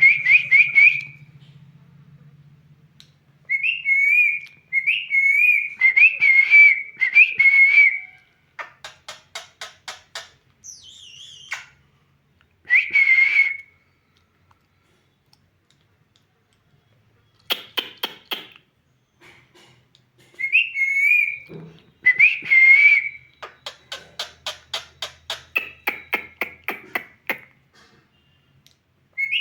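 Pet parrot whistling in short warbling phrases, with runs of rapid clicks between them and a few seconds' pause about halfway through.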